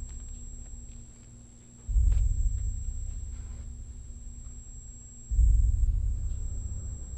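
Suspense film score of deep, low booms, one about two seconds in and another near the end. Each hits hard and fades slowly.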